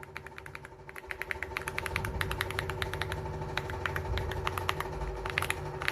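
Mechanical keyboard keys clicking rapidly and irregularly, several strokes a second, louder from about two seconds in, over a steady hum and a low rumble.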